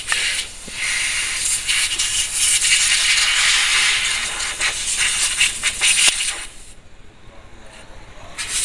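Loud, steady hissing noise that drops away for about two seconds near the end, then comes back.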